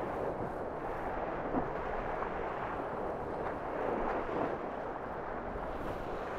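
Steady rush of water along the hulls, mixed with wind, on board a Tornado racing catamaran sailing downwind.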